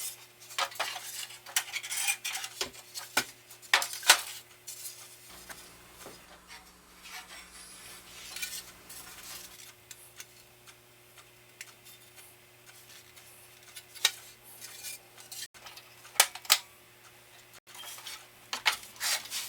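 Hand tools and loose metal parts of a band saw clinking and tapping during disassembly, as scattered sharp clicks at irregular intervals. They come thickest in the first few seconds and again near the end.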